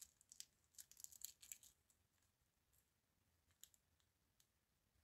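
Near silence with faint small clicks: a quick cluster in the first second and a half, then a few scattered single clicks.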